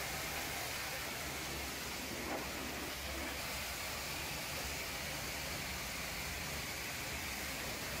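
Pressure washer jetting water against a truck's cab side and wheel: a steady hiss with a low hum underneath.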